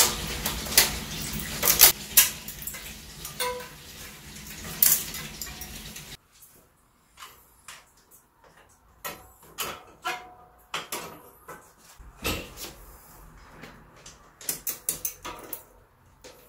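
Scattered clicks, clinks and knocks of work on a bicycle rear wheel: the cracked plastic spoke protector behind the freewheel being pried off the hub, then, after the background hum drops out about six seconds in, sparser knocks as the wheel and tyre are handled against the frame.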